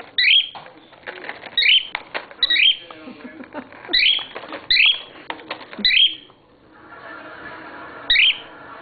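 Cockatiel calling in short, loud chirps that sweep upward, about seven of them, over a steady crackle and clicking of the plastic cough-drop package he is pulling at.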